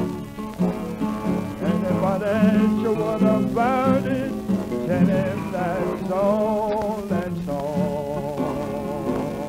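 Old 1927 blues record of accordion with two guitars: the guitars strum a steady beat under a wavering high melody line.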